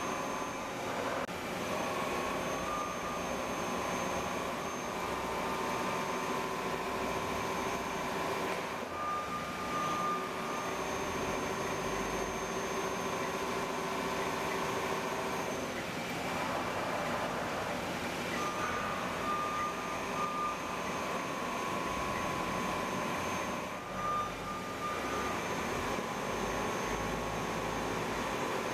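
Steady mechanical hum of shop machinery with several whining tones that drop out and come back a few times.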